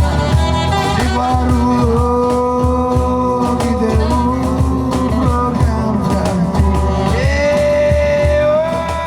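A live band playing: a steady drum beat and bass under long, held melody notes, with a new note sliding up and held from about seven seconds in.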